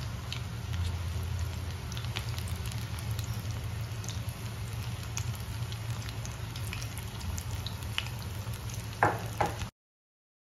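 Gram-flour-battered chilli rings deep-frying in hot oil in a kadai: a steady sizzle with scattered small pops and crackles over a low hum. A couple of louder knocks come near the end, then the sound cuts off suddenly.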